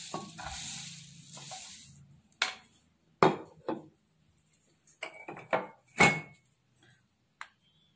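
Puffed rice poured from a bowl into a glass bowl, a dry rattling rustle for about two seconds. It is followed by several separate knocks and clinks of bowls being moved and set down on the counter.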